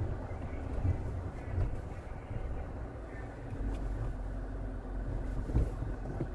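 2014 Dodge Charger SRT8's 6.4-litre HEMI V8 with a Corsa exhaust, running at low speed with a steady low rumble.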